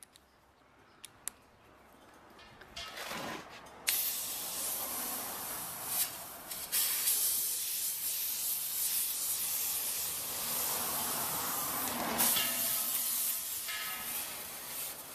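Compressed air hissing out of a homemade 0.5 mm brass blow-gun jet, fed through a hose from a pumped-up stainless steel fire extinguisher used as an air tank. The blast starts abruptly about four seconds in, runs steadily for about eight seconds, then weakens and fades near the end.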